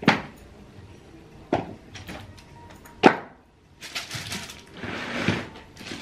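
Things being handled and moved around in a crammed clothes closet: three sharp knocks about a second and a half apart, then rustling and shuffling with small bumps.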